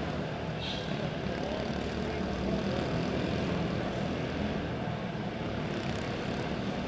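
Pack of quarter midget race cars running laps, their small single-cylinder engines buzzing together in a steady drone.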